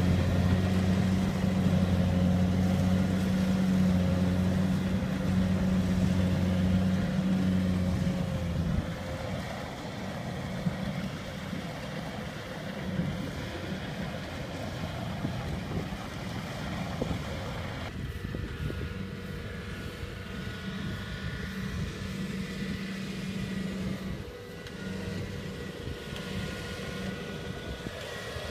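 Rice combine harvester's diesel engine running steadily while it harvests, a continuous drone that drops noticeably in loudness about nine seconds in as the machine is farther off.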